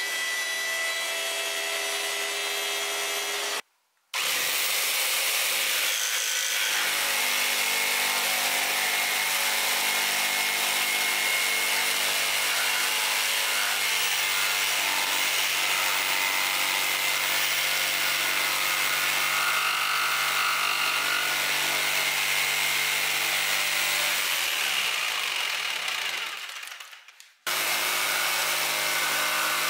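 Electric power tool running and cutting wood, a steady loud machine whine with noise from the cut. There is a cut to a fresh take at about 4 seconds. Near the end the motor winds down before another cut.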